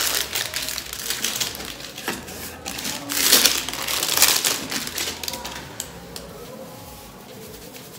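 Packaging crinkling and rustling in irregular crackly bursts as a feather duster is pulled out of it, loudest around three to four seconds in and quieter toward the end.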